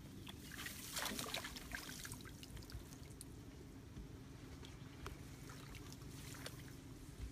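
Shallow marsh water splashing and dripping with crackly rustling of wet grass as a speared fish is lifted out and carried off wading, busiest about a second in and then scattered light splashes and rustles.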